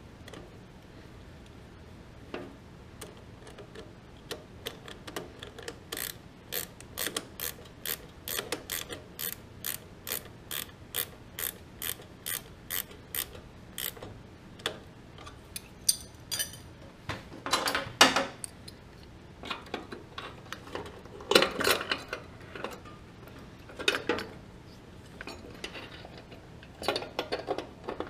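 Ratcheting wrench clicking as a bolt beside the battery is turned: a long even run of sharp clicks, about two to three a second. Later comes a handful of louder, irregular metal knocks and rattles.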